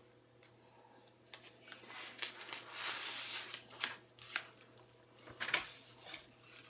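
Paper rustling and crinkling as sheets of drawing paper are handled, with a few short clicks among the rustles.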